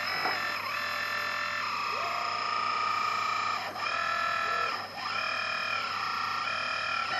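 Background music: a distorted electric guitar playing sustained notes that change every second or two.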